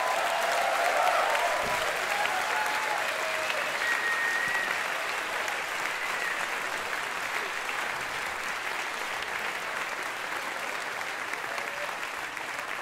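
Audience applauding, loudest about a second in and slowly tapering off, with a few voices calling out in the first few seconds.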